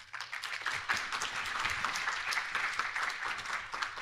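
Audience applauding at the end of a talk: a dense, steady patter of many hands clapping.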